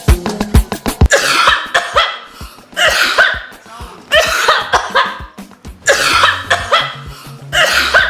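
A person coughing loudly five times, about a second and a half apart, over a thinned-out dance beat.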